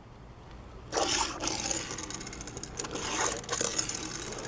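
A Hot Wheels Gotta Go die-cast toy truck skidding and rolling across a hard tabletop, its small plastic wheels scraping as it is pushed into a drift, starting about a second in.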